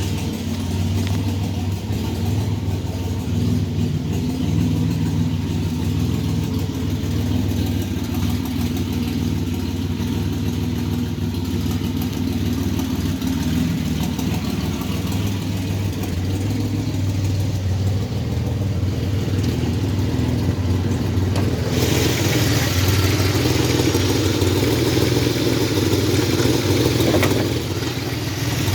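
1985 Chevy S10's carbureted 2.8 V6 running steadily after a cold start. The engine has a knocking noise the owner can't yet identify. About 22 seconds in, a louder rushing sound joins for some five seconds, then drops away.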